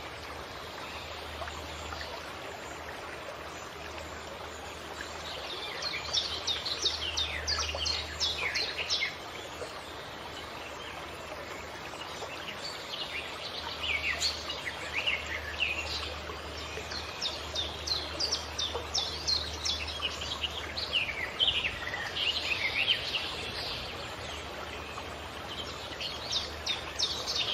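Songbirds singing in several bursts of quick, falling chirps over the steady rush of a flowing stream.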